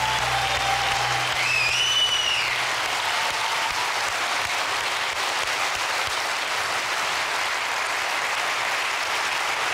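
Large audience applauding steadily at the end of a song, while the last of the backing music dies away in the first second or so.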